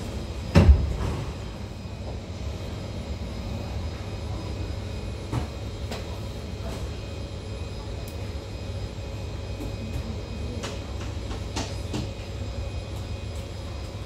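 Steady low hum inside a Kawasaki C151 metro train standing at a station with its doors open, with scattered light clicks. One loud thump comes about half a second in.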